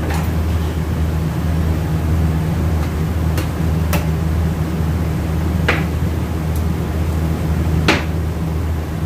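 Steady low drone of workshop machinery, with about four light clinks as metal automatic-transmission parts are handled on a workbench.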